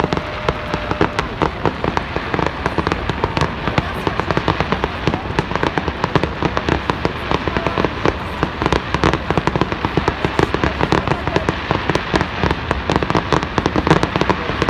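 Fireworks display going off: a dense, continuous crackle of many small bangs and pops, several each second.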